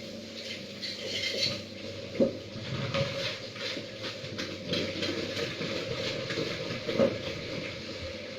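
Water rushing and hissing during a water filter media change, with two sharp knocks, one about two seconds in and one about seven seconds in.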